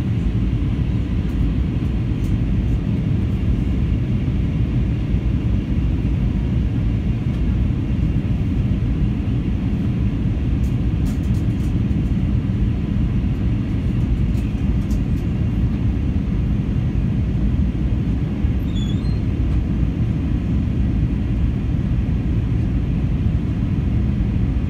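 Steady low rumble inside the cabin of an Airbus A321 on approach, from its twin jet engines and the airflow over the fuselage, heard from a window seat over the wing.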